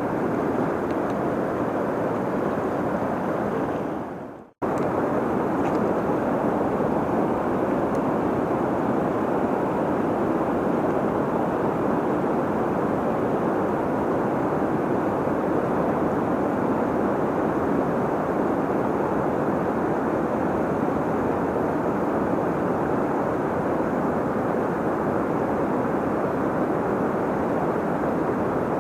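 Steady rushing of river water, an even roar without gusts; it fades out just after four seconds in and cuts straight back in.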